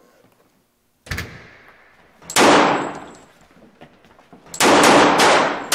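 A door shuts with a sharp knock, then one very loud gunshot rings out. About two seconds later a rapid volley of shots follows, roughly five a second.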